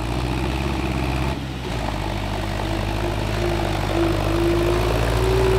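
Farm tractor engine running steadily under load as the tractor drives through mud, its pitch climbing slightly in the second half.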